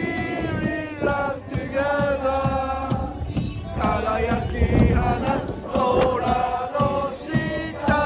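A large crowd of football supporters singing a chant together in unison, in long held notes that move step by step, phrase after phrase with short breaks between.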